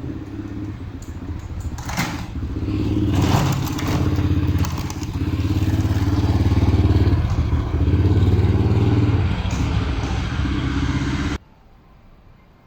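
Motorcycle engine running close by, its level swelling and dipping as it is revved, with some brief rattling noise in the first few seconds; it cuts off abruptly about eleven seconds in.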